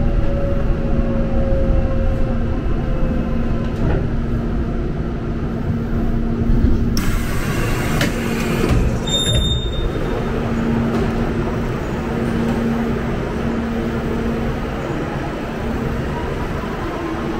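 Seoul Subway Line 3 train running with a steady rumble and a motor whine that falls in pitch at the start. A burst of hiss comes about seven seconds in, then a short high electronic beep, and a faint whine rises near the end.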